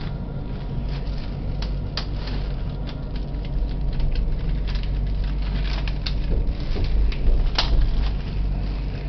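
Tram running along its rails, heard from inside at the front: a steady low rumble with irregular clicks and clacks over it, the sharpest about two seconds in and again about three quarters of the way through.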